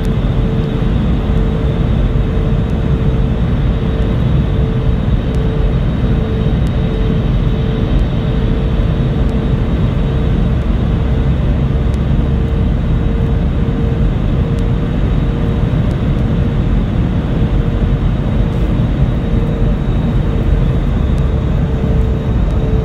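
Steady cabin noise of an Airbus A320-family jet airliner descending: engine and airflow rumble with a steady hum a little under 500 Hz, heard from inside the cabin.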